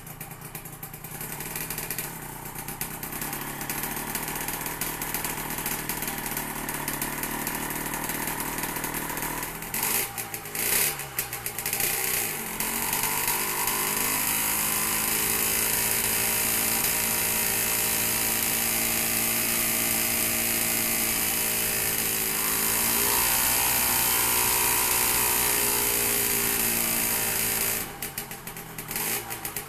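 Small petrol engine driving a wooden propeller on a homemade rig, during a static propeller test. It runs at low revs at first and is blipped a few times about ten seconds in. It is then opened up, the pitch rising to a loud, steady high-rev run with the propeller's rushing whoosh. That run lasts about fifteen seconds, with one brief dip and rise, before the engine drops suddenly back to low revs near the end.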